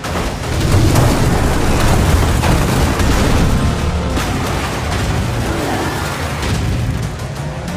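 Car crashing through a row of parked motor scooters, a series of heavy booms and metal impacts over dramatic film music.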